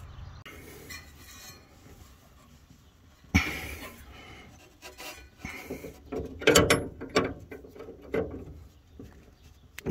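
Flare-nut wrench on a transmission cooler line fitting at the radiator: a short scrape about three seconds in, then a run of irregular metal clicks and scrapes as the wrench is worked on the nut.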